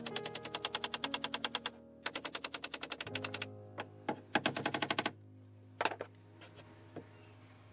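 Rapid runs of sharp mechanical clicks, about a dozen a second, from a carpentry tool working on a wooden window frame. There are three runs of a second or so each, then a few single clicks, over a low steady hum.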